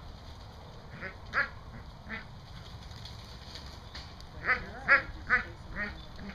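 Herding dog giving short, high-pitched yips as it works sheep: a couple about a second in, then a quick run of about five near the end. This is the excited noise of a young dog at work, which the trainer expects to go away as training goes on.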